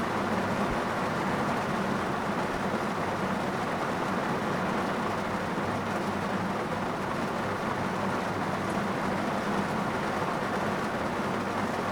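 Rain falling on a car's roof and windows, heard from inside the cabin as a steady, dense patter with a steady low hum underneath.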